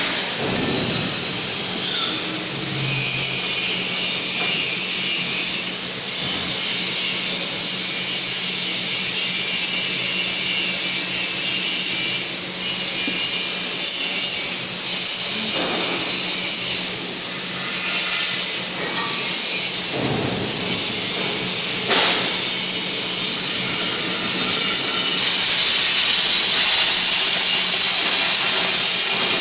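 CNC plasma cutter's torch hissing with compressed air over a steady low hum. The hiss starts about three seconds in, breaks off briefly several times, and becomes louder and steadier near the end as the torch cuts steel plate.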